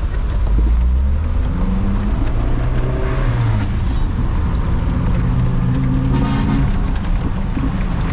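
Isuzu Trooper engine pulling away and accelerating, its pitch climbing in several steps as it goes up through the gears.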